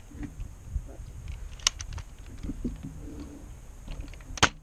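Nerf Zombie Strike CrossCut foam-dart blaster in use: a sharp plastic clack about one and a half seconds in, then a louder snap near the end as it fires a dart.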